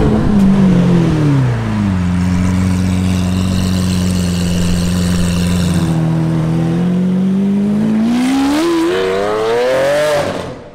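Lamborghini Aventador's V12 engine: revs falling away at first, then a low steady run, then revving up in a rising pitch as the car accelerates off, dropping away near the end.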